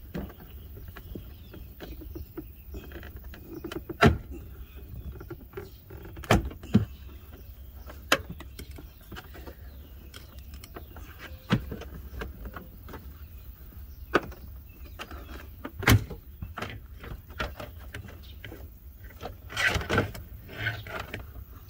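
Interior trim panel of a Saturn Sky being pried loose beside the seat: about half a dozen sharp snaps and clicks of its retaining clips letting go, spread out, then a scraping rustle of the panel being pulled free near the end.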